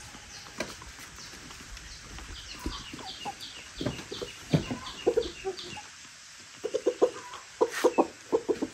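Chickens clucking: runs of short, repeated clucks, loudest about halfway through and near the end. A steady series of high chirps sounds through the first half, and there are a few knocks.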